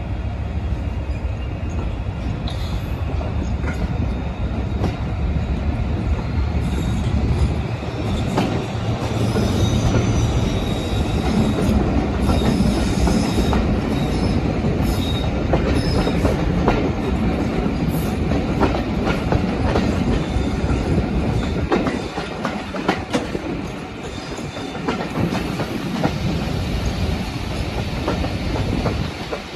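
Class 56 diesel locomotive's Ruston-Paxman V16 engine working hard as it hauls a passenger train away, heard from an open coach window, over the steady clicking of wheels on rail joints. A high squeal of wheel flanges on the curve comes in about a quarter of the way through and fades by the middle.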